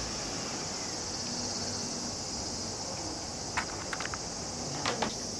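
Steady high-pitched drone of insects, with a few short sharp clicks about three and a half and five seconds in.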